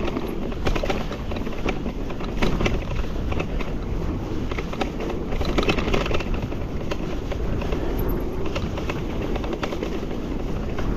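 Mountain bike rolling down a rough, rocky trail: steady wind noise on the microphone and tyre noise, with frequent sharp clattering knocks from the frame-mounted pump still rattling in its mount.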